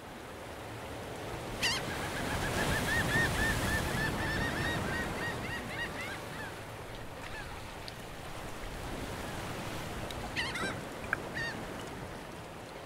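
Wild birds calling: a sharp call, then a rapid run of short repeated calls for a few seconds, and a few more sharp calls near the end, over a steady rushing background.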